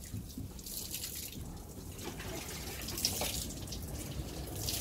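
Water running and splashing, as when a car is being washed with a hose, with short hissy surges now and then over a steady low rumble.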